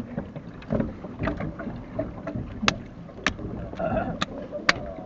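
Sharp clicks and knocks from the oars and oarlocks of a coxed eight at the start line, picked up close by a recorder inside the boat, with wind rumbling on the microphone. The loudest clicks come in the second half, about half a second to a second apart.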